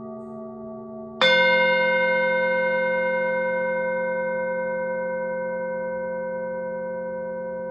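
A singing bowl is struck once about a second in and rings with several clear tones that fade slowly, over the dying ring of the previous strike and a low steady hum.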